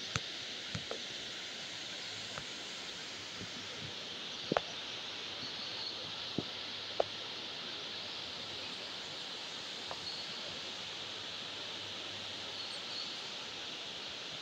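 Steady rushing of a shallow, rocky river flowing below the bridge, with a few sharp knocks in the first half, the loudest about four and a half seconds in.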